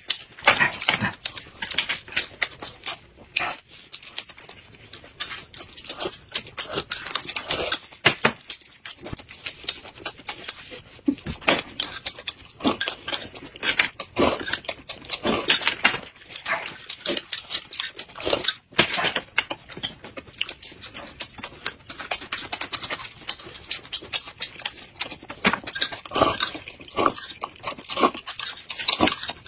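Two people eating close to the microphone: rapid, wet chewing and lip-smacking on flatbread and braised meat, with slurps from small glasses of sauce.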